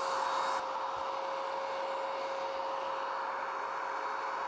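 Cordless DEKO DKSG20K2 electric paint sprayer running steadily: the turbine gives a steady whine over the hiss of primer spraying from the nozzle.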